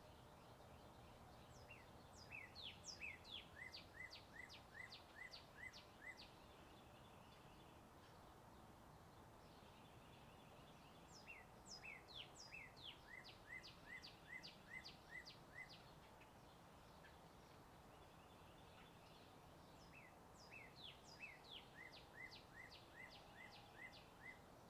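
A songbird singing the same song three times, about nine seconds apart, each song a quick string of short, high, downward-sweeping notes lasting about four seconds. Underneath is a faint steady rumble of distant road traffic.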